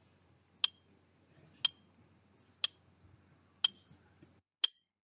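Countdown timer sound effect: five sharp clock-like ticks, one each second.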